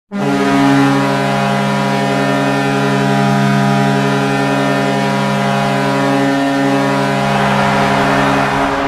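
Vancouver Canucks arena goal horn sounding one long, steady, deep blast that starts abruptly, the signal of a Canucks goal.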